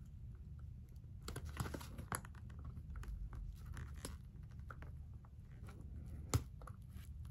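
Small screwdriver prying and scraping under the metal cover of a binder ring mechanism as it works loose, with faint scratches, light clicks and one sharper click about six seconds in.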